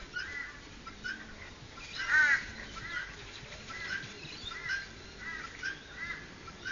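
Short, high-pitched animal calls repeating about every half second, with a louder cluster of several calls about two seconds in.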